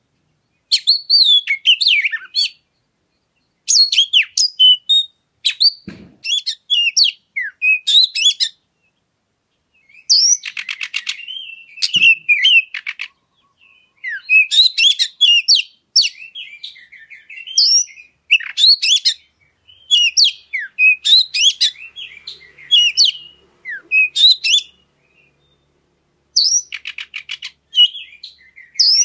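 Oriental magpie-robin singing: bursts of quick, varied high whistled phrases mixed with a few harsh, buzzy rattles, separated by short pauses.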